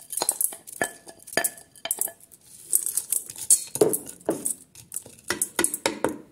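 Wooden spoon knocking and scraping against a glass bowl and a steel pressure cooker as wet washed grains and pulses are spooned in and spread around the pot: an irregular string of clinks and knocks, several a second, with the soft rustle of the grains.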